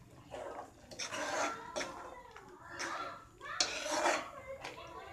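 Long stainless-steel ladle stirring thick coconut gravy in a steel pan: repeated scraping, sloshing strokes against the pan's sides and bottom.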